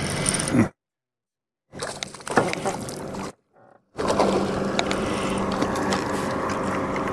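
Steady wind-and-water noise on an open fishing boat with a low hum under it and a few light clicks. It drops twice to dead silence for about a second.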